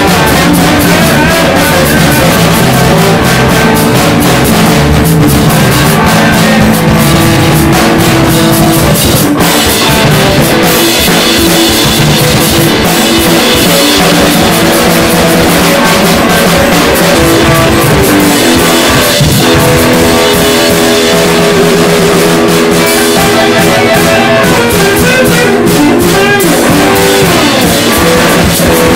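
Hard rock song played by electric guitar and drum kit, loud and unbroken.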